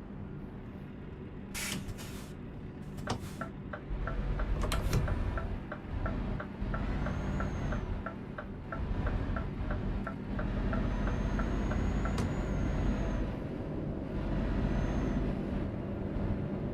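Low engine and road rumble heard from inside a moving vehicle, with a couple of short knocks and then a steady, evenly paced ticking of the turn-signal indicator that runs for several seconds before stopping.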